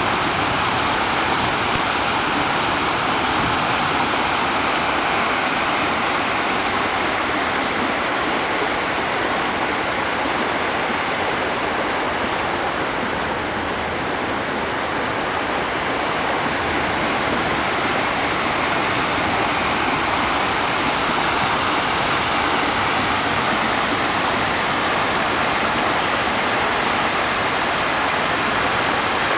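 Floodwater rushing steadily as it overflows a retention pond and washes out across a footpath.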